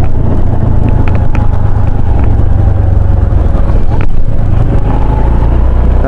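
Motorcycle on the move: engine running steadily under a heavy rumble of wind on the microphone, with a couple of short clicks.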